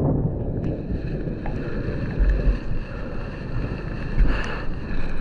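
Wind buffeting the microphone of a moving Honda Dio scooter, gusting louder twice, over a steady high whine from the scooter's running engine.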